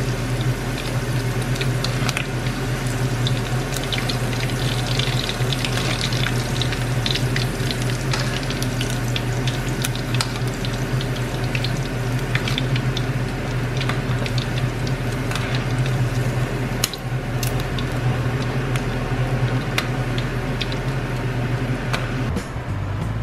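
Battered squid rings (calamares) deep-frying in hot oil in a wok: a steady crackling sizzle dotted with many small pops, over a steady low hum.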